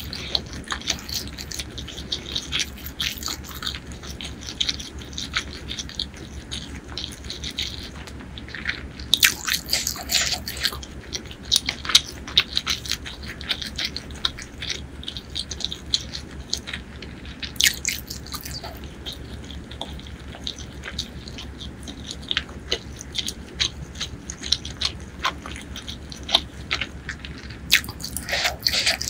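Close-miked human chewing of chicken curry and rice: a steady run of small wet mouth clicks and smacks, with louder flurries about nine seconds in, around eighteen seconds, and near the end. A faint steady low hum runs underneath.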